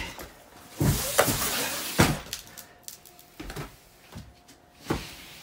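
A cardboard carton scraping and sliding over wooden planks laid on a staircase, ending in a heavy thud about two seconds in. Then a few knocks of footsteps on the boards.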